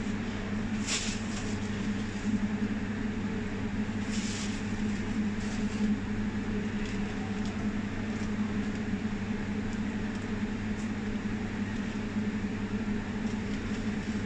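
Steady hum of commercial kitchen machinery, with aluminium foil crinkling and baking paper rustling as they are peeled back off a steel roasting pan, in a few short bursts during the first five seconds.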